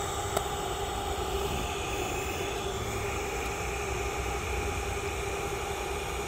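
TIG welding arc burning steadily at about 105 amps on a corner joint: an even hiss with a low hum and a faint steady tone.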